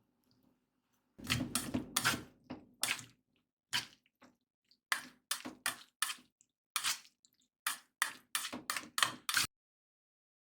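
Wet food squishing: about a dozen short, irregular squelches, stopping suddenly near the end.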